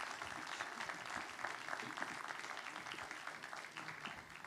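Audience applauding, a dense patter of claps that gradually thins and fades away toward the end.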